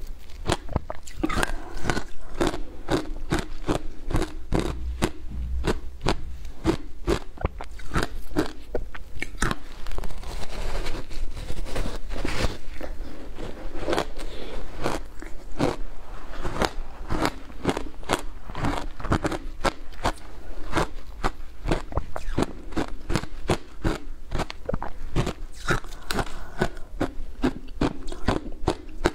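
Packed shaved ice soaked in passion fruit pulp being bitten and chewed: many crisp crunches in quick, irregular succession.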